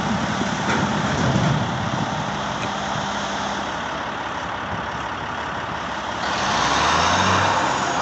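Diesel engine of a Volvo articulated dump truck running while it tips its load, with a steady rumble across the whole range. About six seconds in it gets louder and its note drops deeper.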